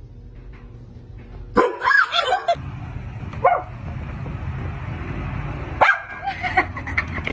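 A dog barking and yelping in a few short outbursts over a steady low background rumble.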